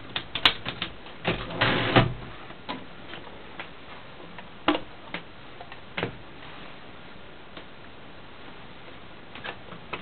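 1923 Remington No. 12 manual desktop typewriter's mechanism clicking and clacking as it is handled: a quick run of clicks in the first two seconds ending in a short rattle, then a few single clicks spaced a second or more apart.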